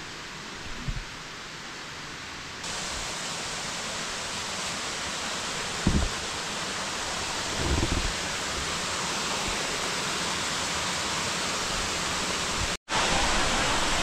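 Amicalola Falls' water rushing down over rock, a steady hiss that steps up about three seconds in and grows louder toward the end. A couple of brief low bumps come in the middle, and the sound cuts out for an instant near the end.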